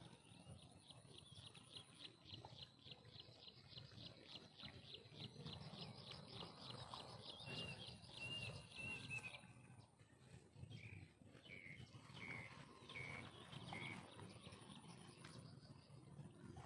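Faint outdoor animal calls: a rapid pulsing call of about four pulses a second for most of the first half, with short high chirps repeating from about seven seconds in, over a steady high whine and a low rumble.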